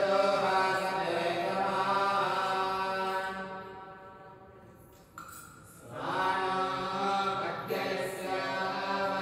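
A voice chanting in long, steadily held notes: one phrase fades out about four seconds in, and after a short pause a second phrase begins about six seconds in.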